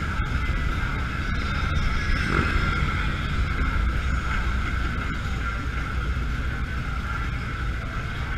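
Cruiser motorcycle engine running steadily under way at road speed, with wind noise on the bike-mounted camera.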